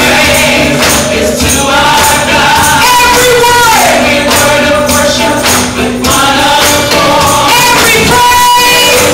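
Live gospel praise music: several voices singing long held notes, with a tambourine shaken on the beat.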